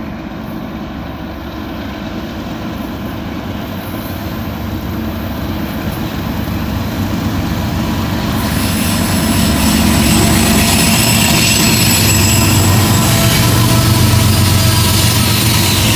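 Diesel locomotives at the head of a BNSF double-stack freight train approach and pass close by, their engines running as a low rumble that grows steadily louder and peaks as the units go past. High thin whining tones join in about halfway through.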